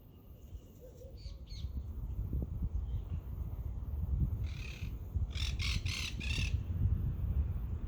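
A bird giving harsh calls: a couple of short ones about a second in, another a few seconds later, then four quick calls just past the middle. Wind rumbles on the microphone underneath, growing louder.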